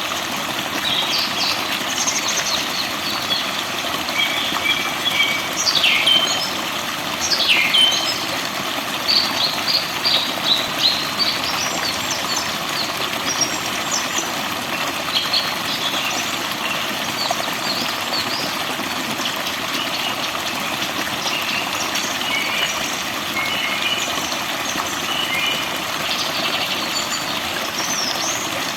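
Many forest birds chirping and singing over a steady rushing hiss, with two sharp downward-sweeping calls about six and seven and a half seconds in.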